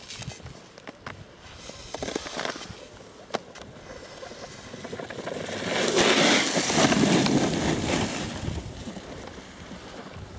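Skis and a snowboard sliding over hard, tracked piste snow, the edges scraping and clicking at first, then a loud, long scraping skid about six seconds in that fades away over the next few seconds.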